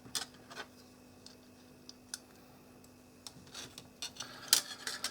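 Scattered small clicks and taps from handling the remote control's circuit board and bent battery terminal, a denser run of them near the end with the loudest about four and a half seconds in, over a faint steady hum.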